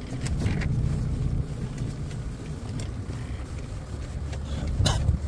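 Small open boat's motor running with a steady low rumble, and a short sharp knock near the end.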